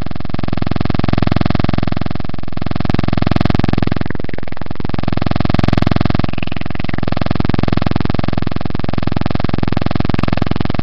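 A loud, steady buzzing drone with many overtones, without pause, which thins briefly about four seconds in.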